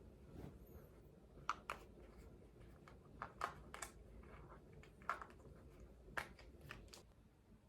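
A scattering of light, sharp clicks or taps at an irregular pace, a few in quick pairs, over a faint low background hum.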